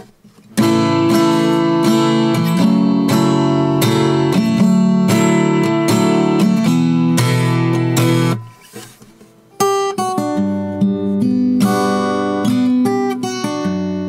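Baton Rouge X11S parlor acoustic guitar (solid spruce top, mahogany back and sides, steel strings) strummed with a capo on, ringing chords for about eight seconds. After a pause of about a second it is played again more lightly, with separate picked notes and chords.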